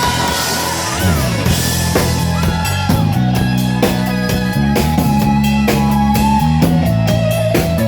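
Live rock band playing an instrumental passage without vocals: an electric guitar plays a lead line with bent and sliding notes over a drum kit and bass.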